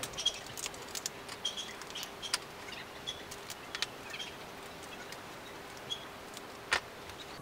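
Scattered light clicks and taps of metal parts and tools being handled while a printer power board is dismantled. A few short high chirps come in between, and a faint steady hum runs underneath.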